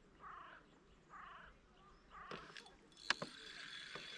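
A bird calls twice. About two seconds in, sharp clicks give way to a steady whirr from a spinning reel on a feeder rod as a hooked fish is played in.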